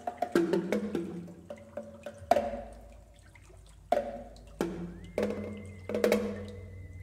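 Percussion and electronic tape in a contemporary piece: a dozen or so irregularly spaced sharp hits, each with a short pitched ring, the loudest about two and a half seconds in. A low hum comes in under them, and a thin, steady high tone enters about five seconds in and holds.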